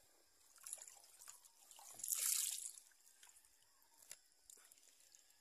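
Water dripping and trickling in small scattered ticks, with a brief louder burst of noise about two seconds in.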